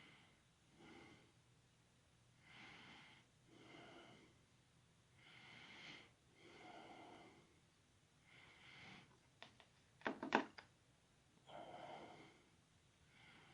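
Faint breathing of a person working close to the microphone, in soft, regular breaths. A few sharp clicks come about ten seconds in.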